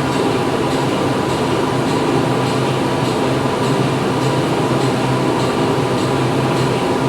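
Factory floor machinery running steadily: a continuous mechanical hum and drone, with a faint regular ticking a little under twice a second.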